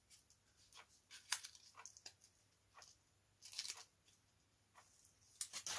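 Faint crackles and ticks of a thin strip of Depron foam being bent along its score lines between the fingers, with a small cluster of crackles about three and a half seconds in.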